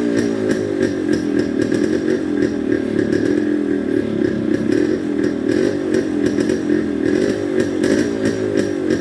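1987 Yamaha RX100's 98 cc two-stroke single-cylinder engine idling just after a cold start from two years of standing, its pitch wavering slightly and its loudness pulsing.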